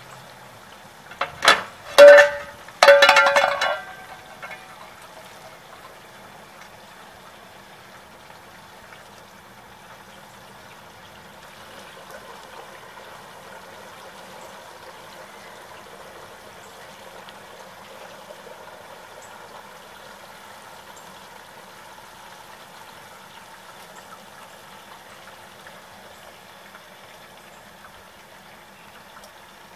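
A few loud metal clanks with a brief ring, from the lifting rod knocking against the aluminium turkey-fryer pot, then a steady rushing noise from the propane turkey fryer as the turkey is raised to be checked.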